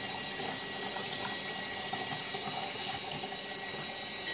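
A steady, water-like rushing hiss with a faint thin high tone through it.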